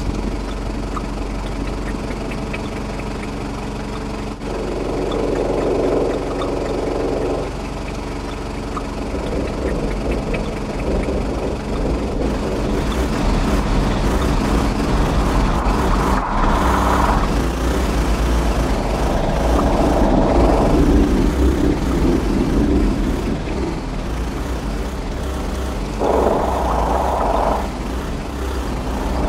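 Safari truck engine noise, reworked in an electronic collage: a steady low hum under steady tones, with patches of filtered noise that swell and fade every few seconds, about 5, 15, 19 and 26 seconds in. The recording is processed live with filters and granular sampling.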